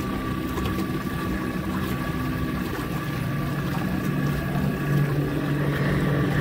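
Outboard motor running steadily at cruising speed, with water and wind noise. A deeper engine note comes in about five seconds in and grows louder toward the end.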